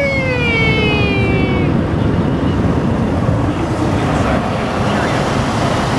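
Automatic car wash spraying water over a truck, heard from inside the cab as a steady loud rush. In the first couple of seconds a long wail rises briefly, then slowly falls in pitch.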